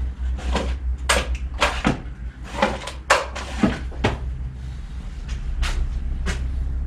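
Irregular knocks and clatter of hard objects being picked up, moved and set down, about a dozen sharp knocks over four seconds or so, over a steady low hum.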